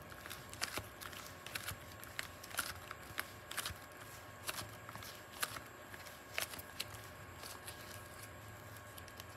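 Slime being squeezed and worked by hand: an irregular run of small sticky clicks and crackles, a few a second.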